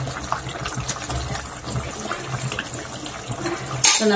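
Thick curry gravy simmering in a non-stick kadai, bubbling with many small pops over a steady background hum. Near the end a wooden spatula knocks sharply against the pan.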